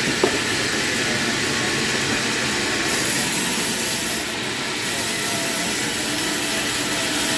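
A saw cutting through wood, making a steady noise with one sharp click just after the start.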